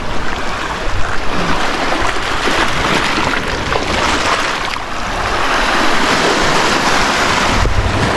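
Small sea waves washing over a pebble beach, the surf rising and easing in slow surges.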